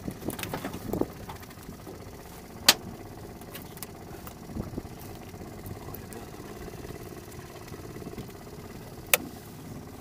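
Small Honda 2.3 outboard motor idling steadily, with the metal grapnel anchor knocking sharply on the boat as it is handled: a few light knocks in the first second, and loud single knocks about three seconds in and again about nine seconds in.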